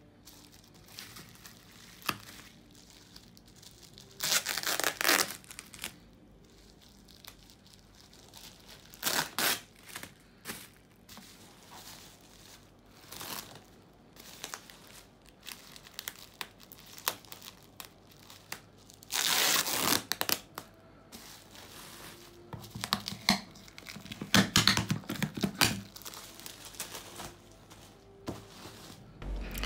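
Bubble wrap being torn and crumpled off a cardboard box, in irregular bursts of crinkling and ripping with quieter rustling between; the longest, loudest rip comes about twenty seconds in.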